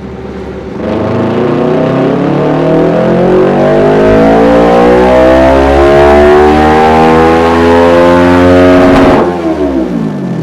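Kawasaki ER-6n 650 parallel-twin engine through an aftermarket Dominator muffler on a dyno pull. From about a second in, the revs climb steadily under load for about eight seconds. Near the end the throttle shuts and the revs fall away.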